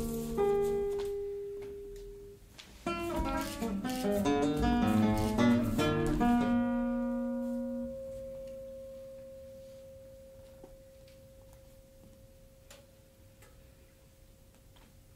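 Classical guitar played solo. A note is left to ring and fade, then a quick run of plucked notes starts about three seconds in. It ends on a chord that rings on and slowly dies away over the last eight seconds, with a few faint taps in the fade.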